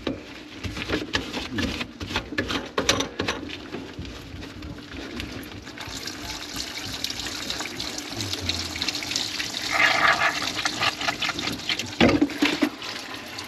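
Water running in a kitchen sink, with many short clicks and knocks and a steady low hum underneath.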